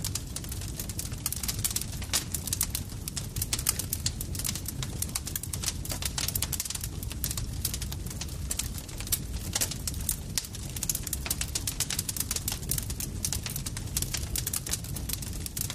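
Campfire crackling: dense, irregular sharp pops and snaps of burning wood over a steady low rumble of the flames.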